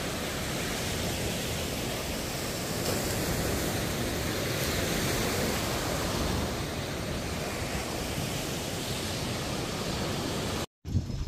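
Steady, even rushing noise with no clear pitch, which cuts off abruptly near the end.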